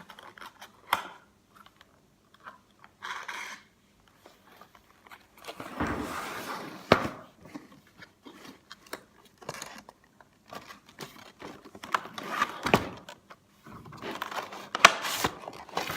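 A gaming mouse's retail packaging being opened and handled by hand: irregular clicks, taps and scrapes, with a couple of longer stretches of rustling about six seconds in and near the end.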